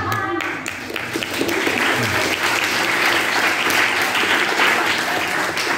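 A small audience clapping, growing denser about a second and a half in and then keeping on steadily.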